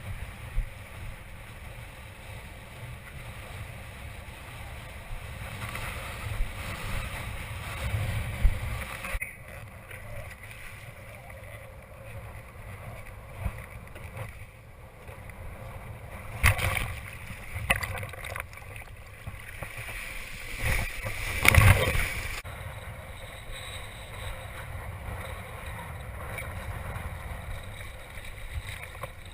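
Strong wind rushing over the microphone and water swishing and splashing while kitesurfing, with a few sharp, louder hits in the second half, the loudest about two thirds of the way through.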